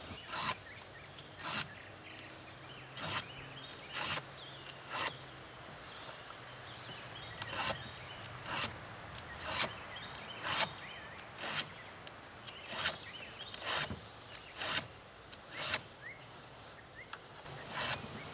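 Hand file rasping across the cutters of a Stihl Farm Boss chainsaw chain, about one stroke a second: the chain is being sharpened by hand.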